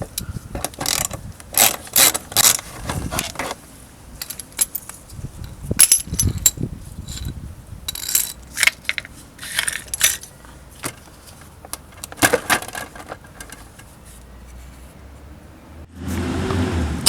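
Clinks and rattles of small metal parts and hand tools being handled, many sharp clicks in short irregular clusters, as fairing bolts are taken out of a Suzuki GSX-R 600 sport bike. A louder, steadier noise lasts about a second near the end.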